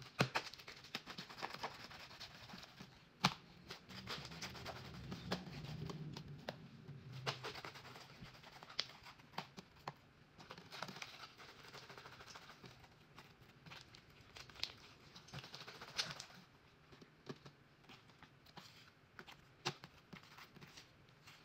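Slime being squeezed, stretched and pulled apart by hand: irregular sticky pops and crackles, with a few sharper snaps.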